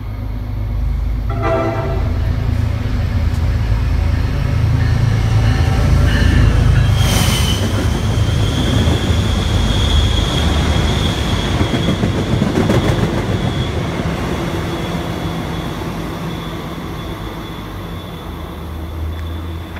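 MBTA commuter rail train with bi-level coaches rumbling past on the track. A short horn toot comes about a second and a half in, and a brief burst of noise about seven seconds in. The passing rumble swells and fades, with a thin, steady, high-pitched wheel squeal from about seven seconds on.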